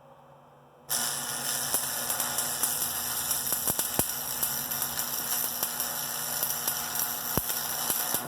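Stick-welding arc: a steady crackling hiss with scattered sharp pops that starts suddenly about a second in and stops suddenly near the end, as a welding rod is burned down into a broken bolt.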